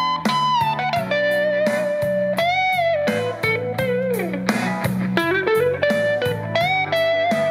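Cherry-red semi-hollow electric guitar playing a blues lead line, single notes with frequent string bends that slide the pitch up and back down. It plays over a backing with a steady beat of about four strokes a second and a held bass line.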